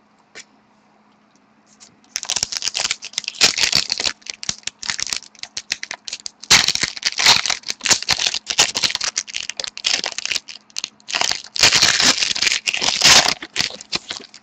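A trading-card pack wrapper being torn open and crinkled, starting about two seconds in, in three spells of crackling with short pauses between.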